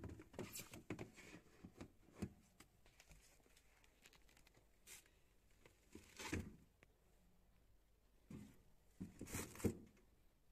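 Faint knocks and crinkles of a plastic food container and wrapped vegetables being set onto refrigerator shelves and into the crisper drawer, scattered through, with the loudest cluster of knocks near the end.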